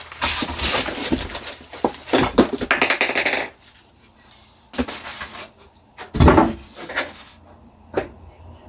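Styrofoam packing being pulled out of a box: dense scraping and rustling for about three and a half seconds, then a few separate knocks as pieces are handled and set down, the loudest about six seconds in.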